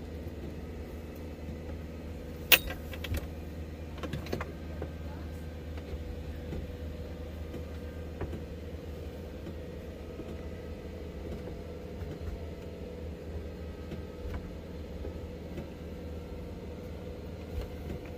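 Nissan GQ Patrol's petrol engine running low and steady, heard from inside the cabin as the 4WD crawls along a rough track. A sharp click about two and a half seconds in, then a few lighter knocks.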